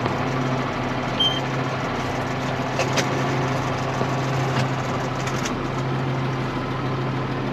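Tractor engine running steadily with a constant low hum, with a few light clicks and rattles, one about three seconds in.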